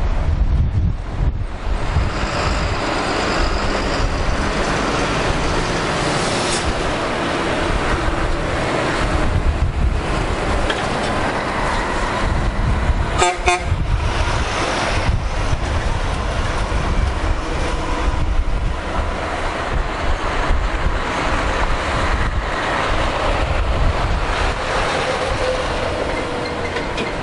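Heavy lorries driving past one after another, engines and tyres running, with wind buffeting the microphone. About halfway through a truck sounds a short blast on its horn, about half a second long, as a tanker lorry passes close by.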